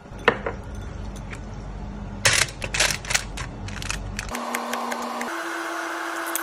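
Kitchen handling noises: a few sharp clicks and a cluster of clatters about two seconds in, over a low hum. About four seconds in the hum stops and background music of long held notes, changing pitch about once a second, takes over.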